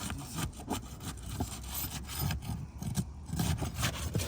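A sealed asphalt shingle being pried up from the course below, with repeated rough scraping and tearing as the stiff adhesive seal strip is broken.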